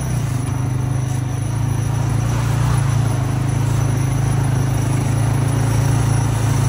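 ATV engine running steadily as the four-wheeler rolls along at low speed, heard from the rider's seat.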